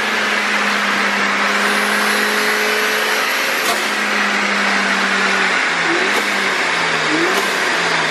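Turbocharged Mazda MX-5 (Miata) four-cylinder engine, with a Garrett 2860R turbo and a 3-inch stainless turbo-back exhaust, running hard on a chassis dyno. It holds a steady engine speed, then from about five seconds in the revs drop and climb again a few times.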